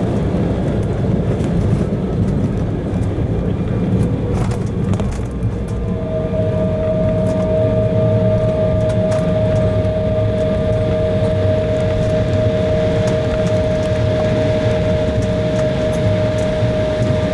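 Cabin noise inside an Embraer 170 jet airliner: a steady, loud rumble of engines and airframe, with a couple of light clicks about four seconds in and a steady two-note whine that comes in about six seconds in and holds.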